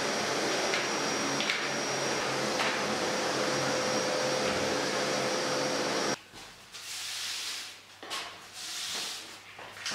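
Canister wet-and-dry vacuum running steadily with a thin whine, sucking up dust from a tiled floor, then cutting off abruptly about six seconds in. After that, a brush swishes against a wall in a few separate strokes.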